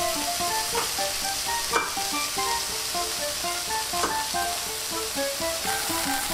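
Shrimp searing in olive oil in a frying pan: a steady sizzle with three sharp crackles, the loudest about two seconds in. Light background music of short picked notes plays along.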